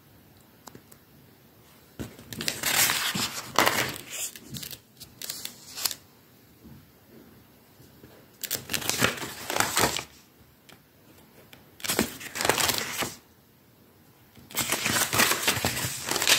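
Pages of a spiral-bound paper book being turned by hand: four separate bursts of paper rustling, each a second or two long, with quiet between.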